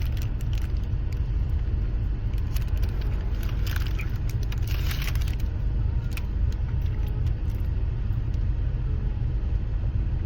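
Steady low rumble throughout, with scattered short clicks and rustles of eating a burger over it, thickest around the middle.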